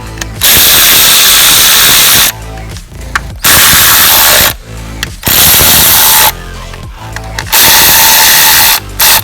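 Power tool run in four bursts of one to two seconds each, with a short blip at the end, driving in the bolts that hold the new camshaft magnets on the engine.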